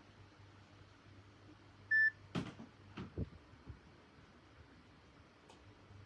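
A phone's short electronic beep about two seconds in, followed by a few soft knocks of the handset being handled, and the same beep again at the very end.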